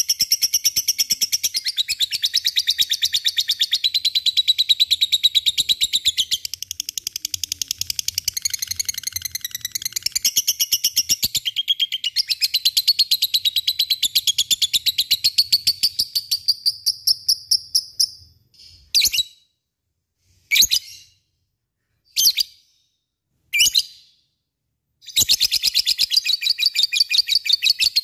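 Lovebird ngekek: a long, fast chatter of sharp repeated chirps. About two-thirds of the way in it breaks into four single short calls with pauses between, then the fast chatter starts again near the end.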